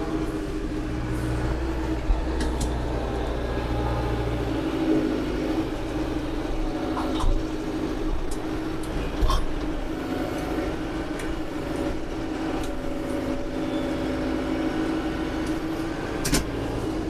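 Branson 5220C compact tractor's diesel engine running steadily as its loader grapple digs into a pile and lifts a stump root ball, with a few sharp knocks along the way.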